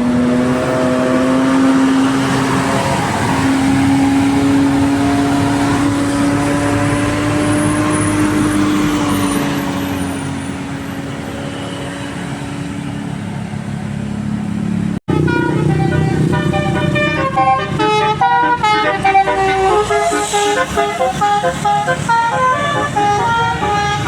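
Bus telolet basuri horn, a multi-tone musical horn, over the bus engine: first a long held note that drifts slightly in pitch, then after a brief break about fifteen seconds in it plays a quick stepping melody of short notes.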